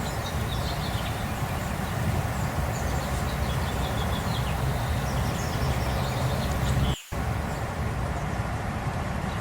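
Birds chirping over a steady low rumble, with the whole sound cutting out for a moment about seven seconds in.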